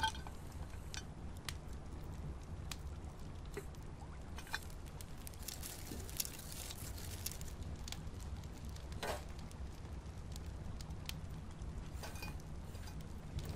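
Burning charcoal crackling, with scattered sharp ticks and small pops over a low steady hum.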